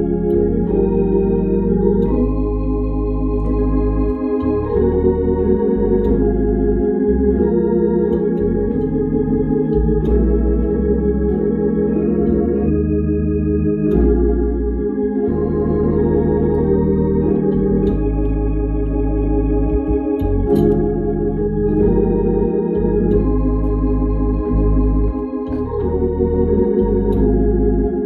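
Two-manual Hammond console organ playing a gospel hymn in full, sustained chords over low bass notes.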